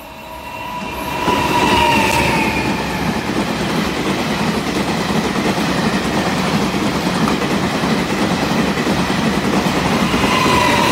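Taiwan Railway E1000-series push-pull Tze-Chiang express running through the station at speed: a loud, steady rumble and wheel clatter that builds over the first second and a half. A whining tone drops in pitch as the front locomotive goes by, about two seconds in, and again as the rear locomotive passes near the end.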